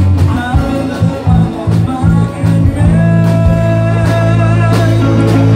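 Live band playing, led by electric guitar over bass and drums. About halfway through it settles into a long held chord with wavering guitar notes, ringing out at the end of the song.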